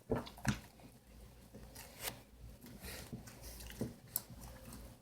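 Faint handling sounds of slime being worked by hand: soft rubbing with a few small clicks scattered through.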